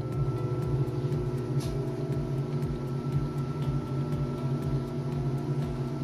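Fujidenzo JWA6500VT fully automatic top-load washing machine running in its rinse stage: a steady motor hum with a low rumble beneath it.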